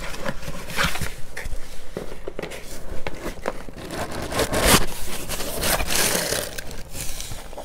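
Cardboard box being opened by hand: the flaps and lid scrape and rustle in irregular strokes, with a louder scrape a little past the middle, and the shredded paper filler crinkles.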